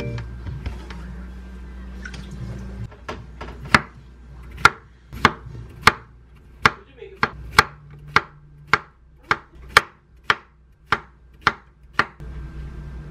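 Chef's knife slicing a cucumber into rounds on a wooden cutting board: about fifteen sharp chops, roughly two a second, starting nearly four seconds in, after some quieter handling on the board.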